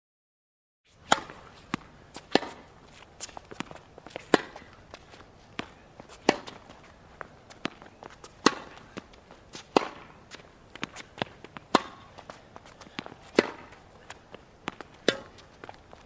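Tennis balls being struck by rackets and bouncing on a court: an irregular string of sharp pops, several a second and some much louder than others, over a faint background hiss. It starts about a second in.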